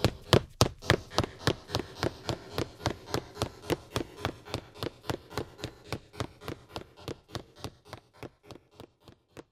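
Footsteps running off at an even pace, about three steps a second, growing steadily fainter as they move away.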